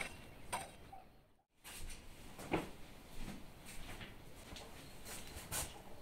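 A couple of short scrapes of a garden hoe in soil, then, after an abrupt cut, scattered light knocks and clicks of items being handled at a kitchen cupboard, with one firmer knock about two and a half seconds in.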